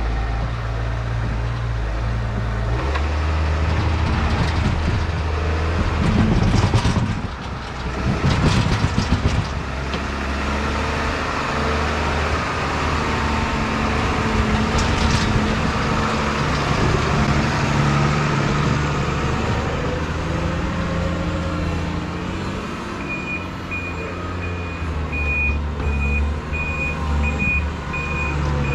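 Tractor's diesel engine running and changing pitch as its front-end loader scrapes manure from a concrete alley, with knocking and scraping from the loader bucket a few seconds in. The tractor's reverse alarm beeps briefly at the start and again steadily through the last few seconds as it backs up.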